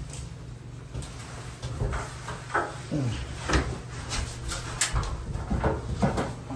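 Irregular knocks and clatter of kitchen cabinet doors and drawers being opened and emptied, over a steady low hum.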